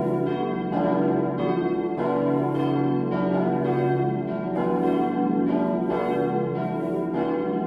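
Full peal of four 1922 cast-steel church bells, tuned B, D, E and F-sharp, swinging together, with overlapping strikes several times a second that ring on. The low B bell stands out from the others, and the D bell's clapper has for some time struck mostly on one side only, which the uploader hears as poorly voiced.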